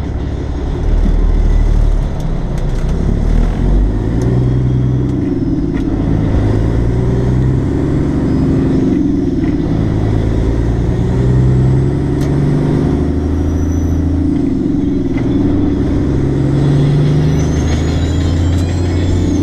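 Semi truck's diesel engine heard from inside the cab, pulling hard as the truck gets up to speed; its pitch climbs and drops back several times as it works up through the gears.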